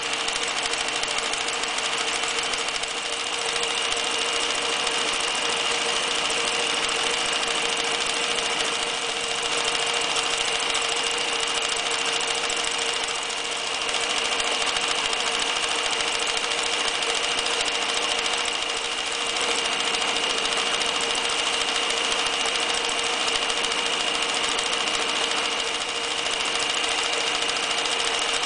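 Restored Reads 1209 electric zigzag sewing machine running steadily, stitching zigzag and decorative stitches through the cloth, with a constant motor whine. It eases off briefly a few times.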